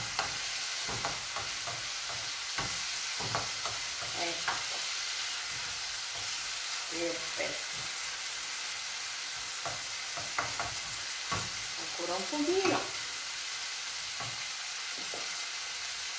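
Sliced artichokes sizzling steadily in a frying pan while a wooden spoon stirs them, with scattered light knocks and scrapes of the spoon against the pan.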